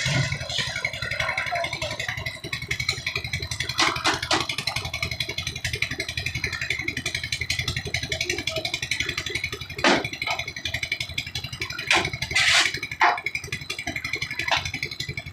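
Concrete mixer's engine running steadily with a fast, even chug, and a few sharp clanks over it.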